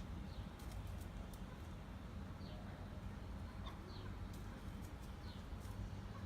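Chukar partridge giving a handful of short, faint calls spread out over several seconds, over a steady low hum with a few sharp clicks.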